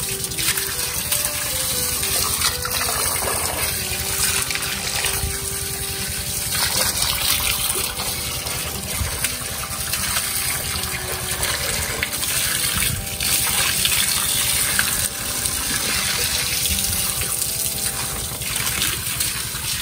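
Bore-well water gushing steadily from a pumped hose into a cement tank.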